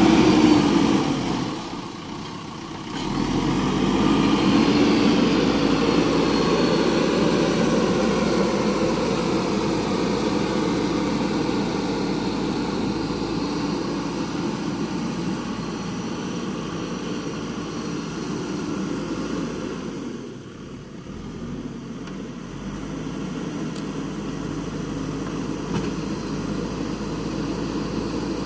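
JCB backhoe loader's diesel engine running and working, its speed rising and falling with the load. The sound drops away briefly twice, about two seconds in and again about two-thirds of the way through.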